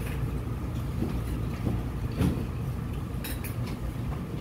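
Cutlery clinking against dishes a few times over a steady low rumble of room noise.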